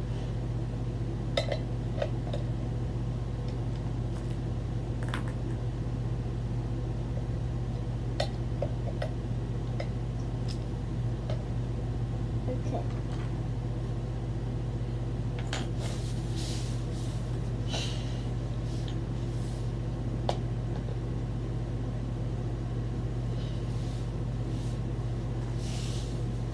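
Steady low electrical or fan-like hum, with scattered light clicks and taps of small objects being picked up and set down, more of them in the second half.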